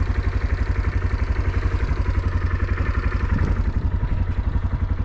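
A small engine running steadily at idle, with a rapid, even pulsing throb.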